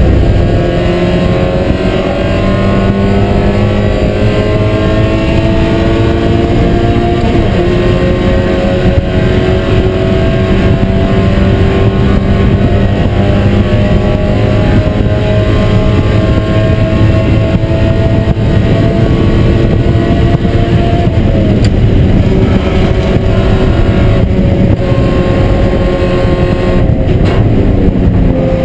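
Spec Miata race car's four-cylinder engine under hard throttle, heard from inside the stripped cockpit. The revs climb steadily, dip briefly about seven and a half seconds in, climb again for a long stretch, then fall away over the last several seconds.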